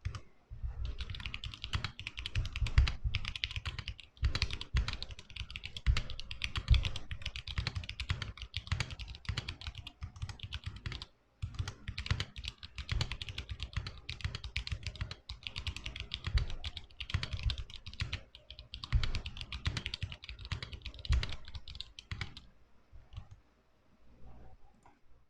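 Typing on a custom mechanical keyboard with KBDfans T1 tactile switches and PBT keycaps in an aluminum case: a fast, continuous run of keystrokes. There is a short break about eleven seconds in, and the typing stops a few seconds before the end.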